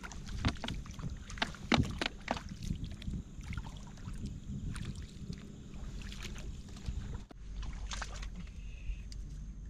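Shallow seawater splashing and sloshing as someone wades through it, with a quick run of sharp splashes and knocks in the first few seconds and fewer later, over a steady low rumble.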